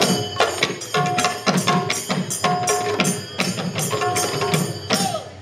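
Manipuri dhol drums beaten together by a troupe of dancing drummers, playing a fast, driving rhythm of sharp strokes several times a second.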